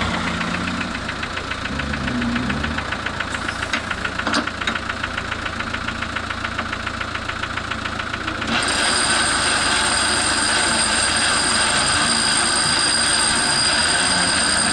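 Off-road vehicle engine running with a fast, even clatter. About eight seconds in, a louder steady running sound with a high whine starts suddenly.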